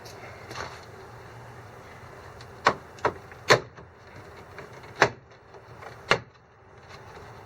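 Five sharp snaps, unevenly spaced over about three and a half seconds: plastic push-in clips popping loose as the grille is pried off a Ford F-150.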